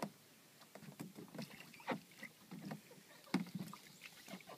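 A canoe being handled in shallow water: faint, scattered knocks and splashes from the paddle and hull, a few a little louder at about one, two and three and a half seconds in.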